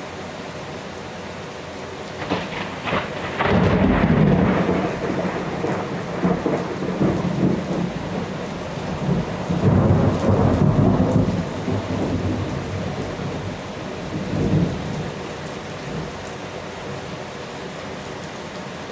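Heavy rain falling steadily. About two seconds in, a thunderclap cracks and breaks into a long rolling rumble that swells again around ten seconds and dies away a few seconds before the end.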